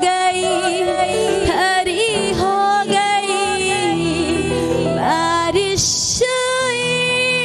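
A woman singing a Hindi Christian worship song (masih geet) into a microphone, long held notes with vibrato, over instrumental accompaniment with steady held notes. The voice breaks off briefly about six seconds in, with a short hiss, then carries on.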